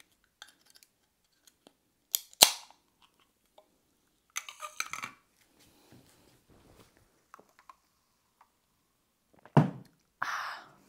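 A few scattered sharp clicks and knocks, the sharpest about two and a half seconds in, with a short rustling burst around the middle and another loud knock and rustle near the end.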